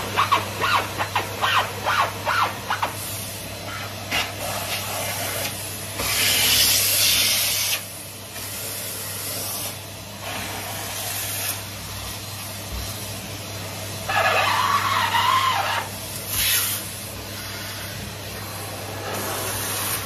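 Henry cylinder vacuum cleaner running while its metal wand is worked over carpeted stair treads, with a steady motor hum. Quick back-and-forth scrubbing strokes come first, then louder sucking hiss twice, around a third of the way in and again about three-quarters through.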